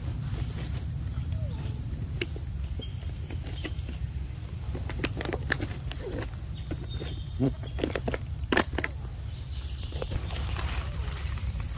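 Outdoor ambience: a steady high-pitched insect drone over a low rumble, with scattered clicks and crackles in the middle, the sharpest about eight and a half seconds in.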